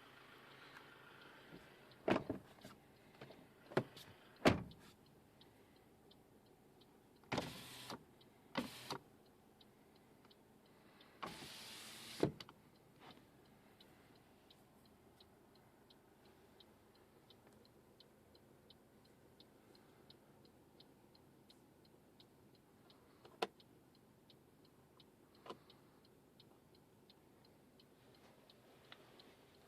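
Car interior fittings being handled: several clicks and knocks, then three short sliding or whirring sounds about 7 to 12 seconds in. After that comes faint, even ticking about twice a second, with two sharper clicks.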